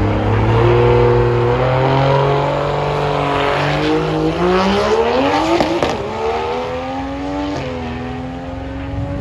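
Drag car engine running hard under acceleration. Its pitch steps up early on, climbs to a peak about halfway through, then falls away, with a short drop near the end.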